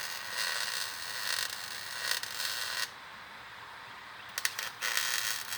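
Electric welding arc crackling and hissing as clips are tack-welded onto steel trusses. The arc stops about three seconds in and strikes again about two seconds later.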